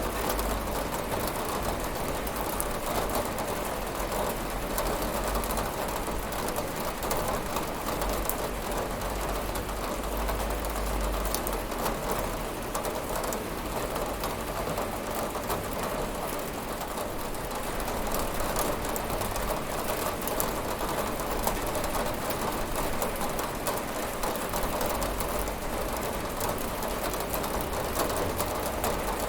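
Steady rain falling and pattering on a window, with a constant low rumble underneath.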